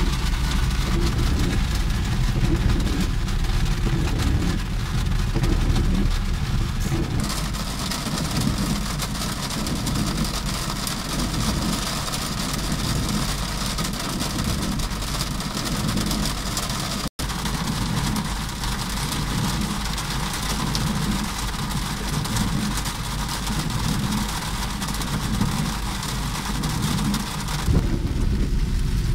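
Heavy rain beating on a car's roof and windscreen, heard from inside the moving car over the low rumble of the engine and tyres on the wet road.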